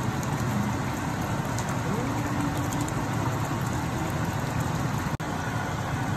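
Chicken curry bubbling and simmering in a pot, a steady crackly hiss like rain. The sound drops out for a moment about five seconds in.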